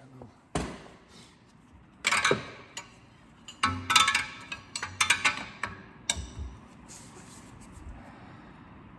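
Metal hand tools clinking and knocking against metal: a string of sharp knocks and clinks over the first six seconds, some ringing briefly.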